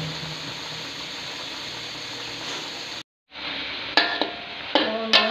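Chicken pieces sizzling steadily in a thick spiced masala in a pot as they are braised. Near the end a wooden spatula knocks and scrapes against the pot a few times as it stirs.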